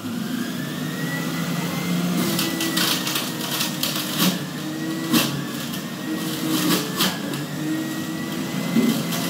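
Electric juicer running with its steady motor hum and whine, shredding carrots, with short crunching bursts each time a carrot is pressed down the feed chute.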